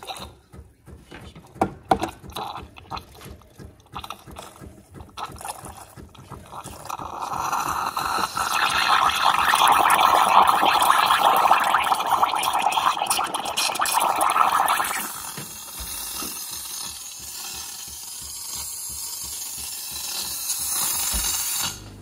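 Steam pipe of a Miele CVA 620 built-in coffee machine steaming milk in a stainless jug. It spits and crackles as the steam starts, then hisses loudly and steadily for about eight seconds. It eases to a thinner, higher hiss and cuts off at the end as the steam knob is turned off.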